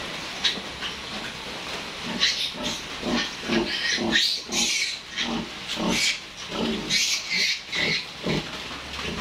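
A sow and her newborn piglets grunting and squealing. From about two seconds in, the short calls come quickly one after another.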